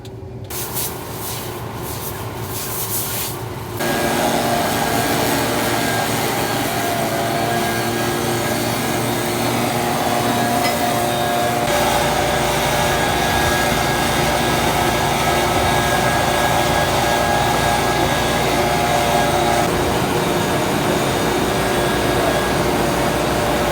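A few clatters, then from about four seconds in a loud, steady rush of engine-driven blowing with several steady motor tones, as chaff and crop dust are blown off combines. A deeper rumble joins about halfway through, and the tones shift near the end.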